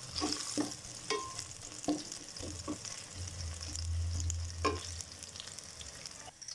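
Sliced onions sizzling and crackling in hot oil in a steel frying pan, nearly cooked, while a spatula stirs them, scraping and knocking against the pan several times.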